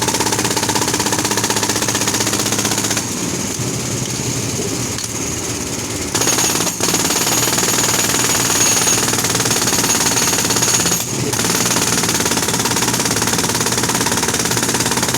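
Compressor-driven road drill hammering rapidly into the road surface, with the compressor's engine running underneath. The hammering eases for a few seconds about three seconds in, comes back hard about six seconds in, and dips briefly near the end.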